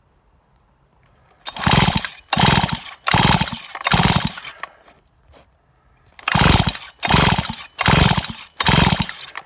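Stihl MS261 C chainsaw turned over by the recoil starter cord in two sets of four quick pulls, each a short burst of the engine cranking that dies away without the saw starting: a no-start.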